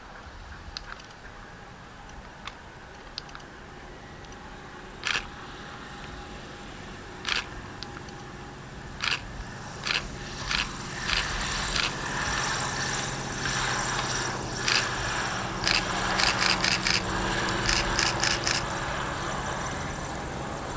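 Diamond DA42 twin-propeller light aircraft's engines running with a steady drone that grows louder as it rolls along the runway. A camera shutter clicks a few times, then fires in quick runs in the second half.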